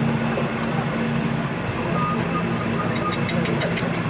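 Forklift engine running steadily. About three seconds in comes a quick run of sharp metallic taps as barrier hardware is struck.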